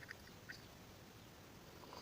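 Near silence: room tone, with a few faint short clicks in the first half-second.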